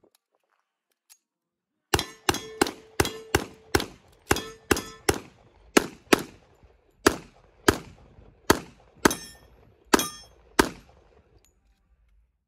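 A rapid string of about twenty pistol shots from two handguns, a .38 Super and a .45, fired together at targets. The shots come about three a second at first, then more spaced out, and stop shortly before the end. The early shots carry a ringing tone.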